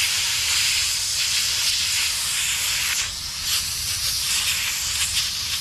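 Compressed air hissing steadily from an air blow gun nozzle, blasting dust out of a desktop computer's USB ports, with a low hum underneath.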